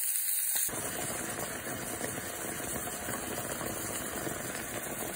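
Beef stock boiling hard in a hot enamelled cast-iron Dutch oven around a seared roast and potatoes: a steady, dense bubbling. The roast's fat is still sizzling before an abrupt change a moment in.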